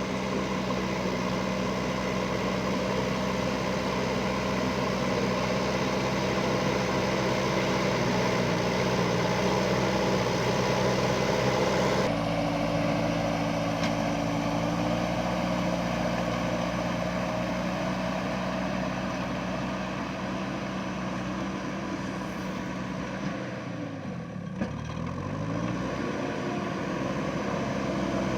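A motor running steadily with a constant hum of several even tones. The sound changes abruptly about twelve seconds in, and near the end the pitch drops sharply and climbs back.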